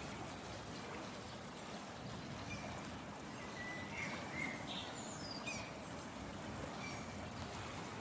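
Steady rush of water outdoors, with a few short, high bird chirps scattered through the middle.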